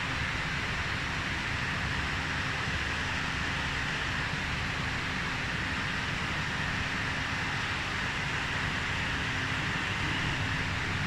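Steady hum and hiss of running equipment: an even hiss in the upper middle range over a low rumble, with a faint steady low hum and no changes.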